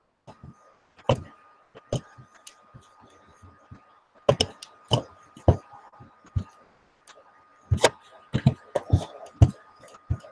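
Irregular clicks and knocks from working a computer mouse on a desk, about a dozen, some of them loud. A faint steady whine comes and goes underneath.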